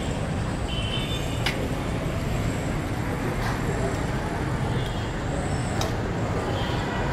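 Busy street background: a steady low traffic rumble with faint voices murmuring, and two sharp clicks, one about a second and a half in and one near six seconds.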